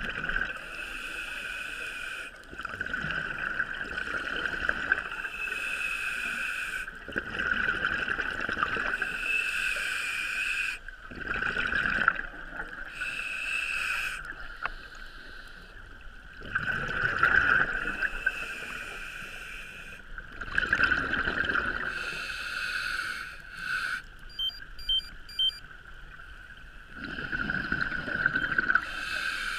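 Scuba diver's regulator breathing underwater: a rushing burst of exhaled bubbles about every four to five seconds over a steady hiss.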